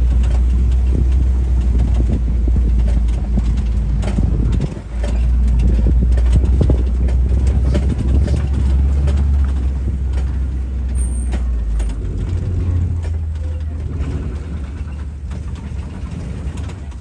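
Open-air safari truck's engine running as it drives, a steady low rumble with scattered knocks and rattles; the engine note changes about twelve seconds in.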